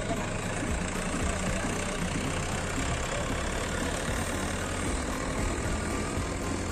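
Light cab-chassis truck's diesel engine running steadily at low revs as the truck rolls slowly over a dirt field.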